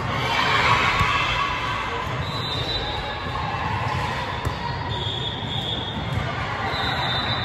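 Gymnasium crowd hubbub with echo, with a few sharp knocks of a volleyball bouncing and being struck on the hardwood court.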